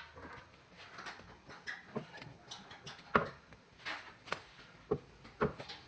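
Irregular sharp clicks and knocks of hand tools and metal parts being handled during driveshaft CV joint work, about half a dozen over a few seconds, the loudest about three seconds in.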